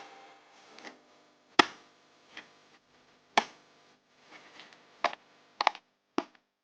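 A series of sharp knocks, irregularly spaced a second or two apart and coming closer together near the end, with fainter taps between them.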